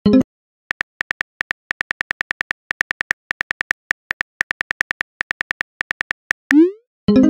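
Texting-app keyboard tap sounds: a rapid run of short, evenly spaced clicks as a message is typed out. About six and a half seconds in, a short rising swoosh marks the message being sent, and a louder ringing tone starts right at the end.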